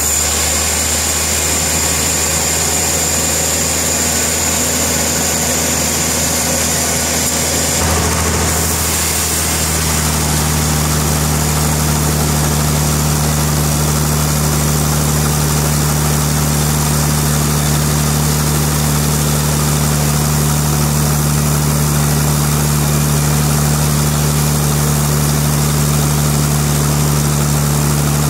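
Sawmill engine running steadily, its low hum changing in tone about eight seconds in and then holding steady again.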